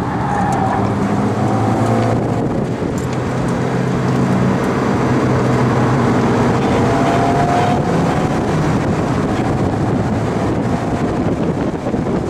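Mazda MX-5's engine running hard as the car slides through a corner, heard from inside the car with wind buffeting the microphone. Tyres squeal briefly near the start and again about seven seconds in.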